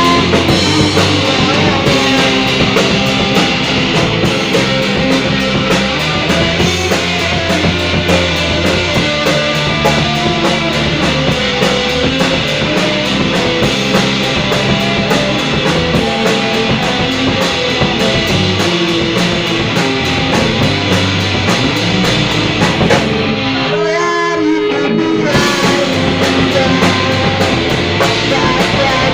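Rock band music led by guitar, with a steady beat. The beat drops out for about two seconds near the end, then comes back.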